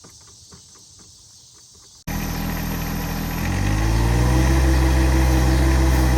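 Faint insect chirping, then about two seconds in a loud engine sound cuts in abruptly. It rises in pitch over about a second and then runs steady.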